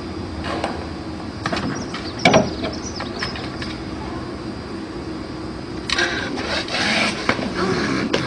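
A person's gasping breaths: a few short gasps in the first seconds, the loudest about two seconds in, then a longer spell of gasping from about six seconds in, over a steady low hum.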